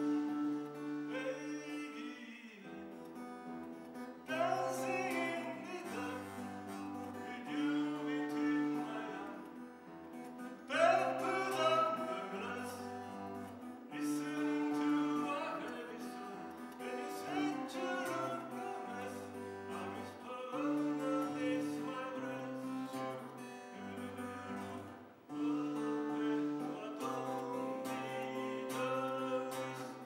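Acoustic guitar playing a slow chord accompaniment, the chords changing about every two seconds, with a man singing the melody over it in phrases.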